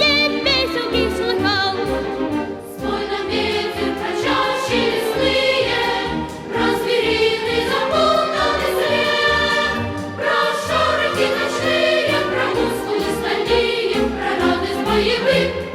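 Choral music: a choir singing with instrumental accompaniment.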